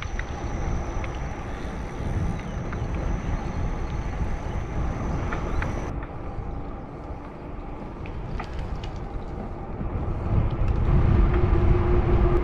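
Wind rushing over the camera microphone and tyre noise from an e-bike rolling along a paved trail, with a few small ticks. A steady hum comes up and the whole grows louder about eleven seconds in.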